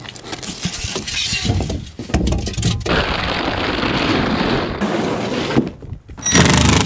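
Packing being torn off: styrofoam packing blocks crunching and breaking, with plastic wrap rustling. The crackle is dense and noisy, loudest through the middle, with another burst near the end.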